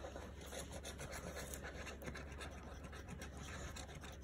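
Scratch-off lottery cards being scratched with a coin: quick, irregular strokes of the coin edge rubbing the latex coating off the card.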